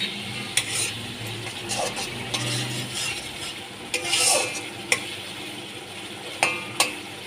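Flat metal spatula stirring and scraping a mustard-and-poppy-seed spice paste as it sizzles in hot oil in a steel kadai. A steady fry hiss, broken by several sharp scrapes of the spatula against the pan, the loudest about four seconds in.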